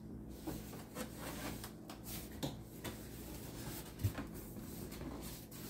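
Cardboard box flaps and paper inserts being handled as the box is opened: rubbing and rustling, with scattered light knocks and a dull thump about four seconds in.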